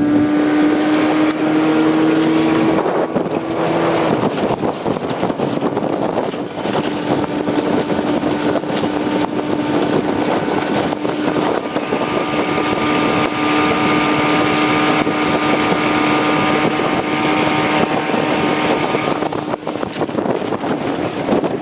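A small boat's motor running steadily at speed, near full throttle, with wind noise on the microphone and water noise under it. Its pitch wavers briefly about three seconds in, then holds steady; it runs smoothly, 'runs beautiful'.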